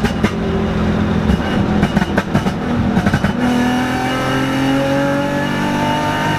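Straight-piped V6 engine of an Infiniti G35 coupe: the exhaust crackles and pops over a steady engine note, then the engine pulls with its pitch rising steadily from about halfway.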